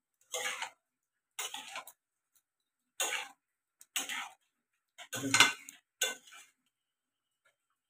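Flat metal spatula scraping and stirring through soaked raw rice, potatoes and meat in a metal kadai, in six short strokes about a second apart.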